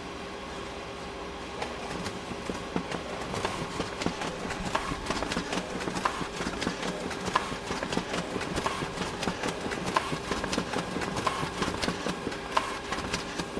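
Photocopier running: a steady machine hum, joined after about a second and a half by a busy clatter of clicks and knocks. A louder clack comes about every 1.3 seconds. The clatter stops at the end and the hum goes on alone.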